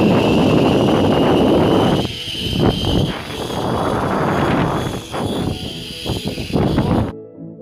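Zip line trolley running along the steel cable with a steady high whine, over heavy wind noise rushing across the phone's microphone. It cuts off sharply about seven seconds in, and soft piano background music follows.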